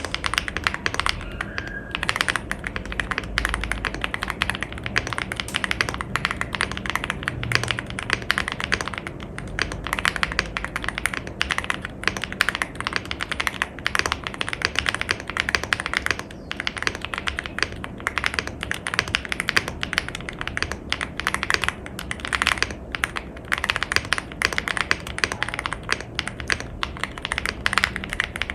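Chilkey ND75 mechanical keyboard in its stock configuration being typed on: a fast, unbroken stream of keystrokes.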